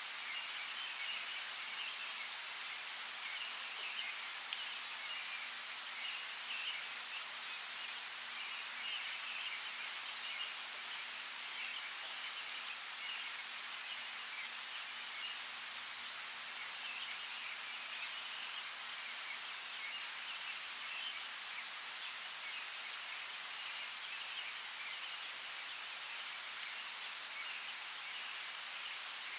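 Steady rain falling, with scattered drops ticking, and small birds chirping in short clusters of high notes through the rain.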